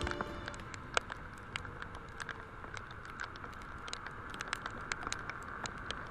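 Raindrops ticking irregularly on the handlebar camera over a steady rush of wind and wet-road noise from the moving scooter.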